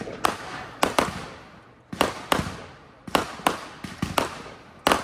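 Fireworks going off: an irregular string of about ten sharp bangs in five seconds, each trailing off in a fading echo.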